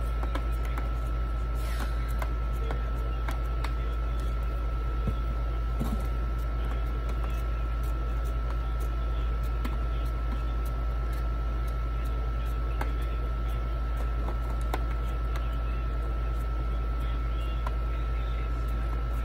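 A steady low hum with a constant thin high tone runs throughout. Over it come faint scattered clicks and scrapes of a knife blade scraping the spines off a nopal cactus pad.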